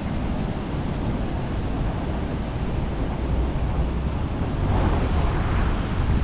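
A 4WD driving on soft sand: a steady low engine and tyre rumble with wind noise on the microphone. It grows louder about five seconds in.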